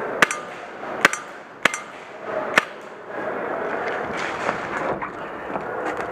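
Airsoft guns firing four single sharp shots, irregularly spaced over the first three seconds, over steady background noise.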